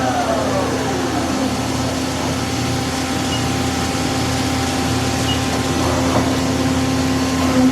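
Mori Seiki SL-75MC CNC lathe spindle winding down from high speed, its whine falling in pitch and fading out over the first second and a half. After that the machine hums steadily at rest.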